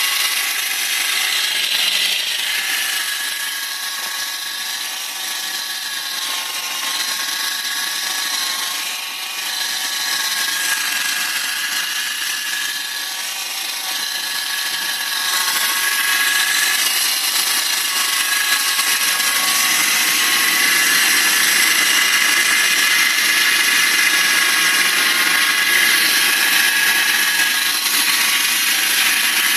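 BMW 318i's M43 inline-four engine running with a steady whine of several high tones that waver slightly in pitch, over a hiss, a little louder in the second half. This is the strange engine noise whose cause the owner does not know.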